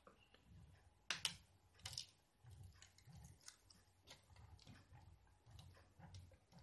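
Near silence with faint, scattered clicks and soft taps as fingers touch and rub the 3D printer's bed; the printer itself is switched off and silent.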